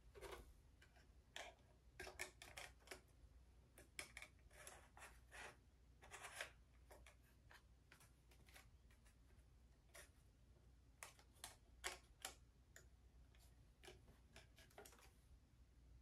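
Faint scattered clicks and brief rustles of hands handling plastic parts and packaging, in two clusters: through the first six seconds or so, then again around eleven to thirteen seconds in.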